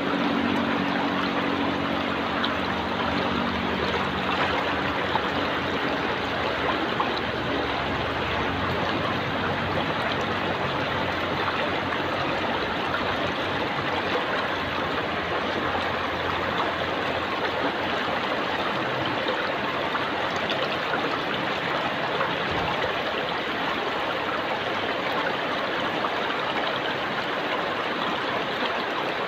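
Stream water flowing steadily over and around rocks, an even rushing wash with no breaks.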